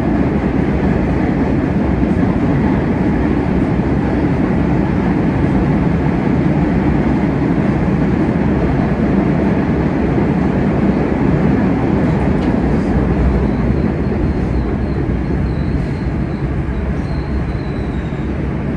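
MBTA Red Line subway car running at speed through a tunnel, heard from inside the car: a steady, loud rumble of wheels on rails and running gear. A faint high whine comes in about two-thirds of the way through.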